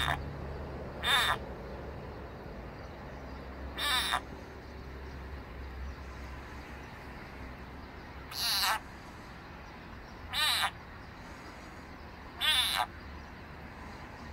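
A frog giving short, loud distress screams, five of them a few seconds apart, while a garter snake is on it.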